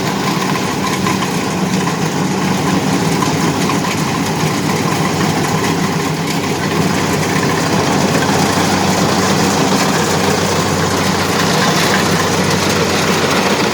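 An engine running steadily at a constant speed, with a continuous low hum.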